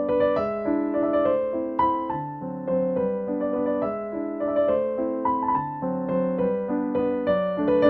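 Background music: a gentle piano melody playing a steady run of notes.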